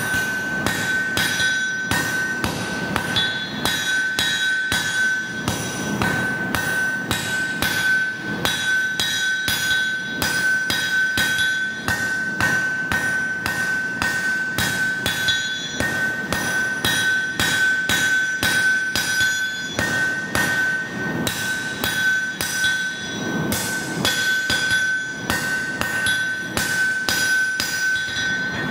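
Hand-held blacksmith's hammer striking a red-hot bar of high-carbon steel on an anvil in a steady rhythm of about two blows a second. The anvil rings at a high pitch between blows. This is the preform stage of forging a blade, drawing out the tapers before the bevels.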